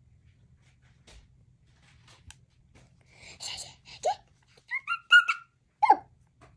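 Toddler's short, high-pitched vocal squeals and squeaks, several in quick succession from about halfway through, after a breathy exhale. Before that only faint small taps of fingers on the plate.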